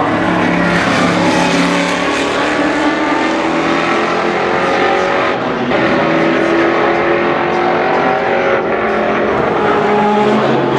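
Spice Group C prototype's 6.5-litre Chevrolet V8 racing engine at full throttle, its pitch climbing through the gears with brief breaks at upshifts about five and a half and eight and a half seconds in.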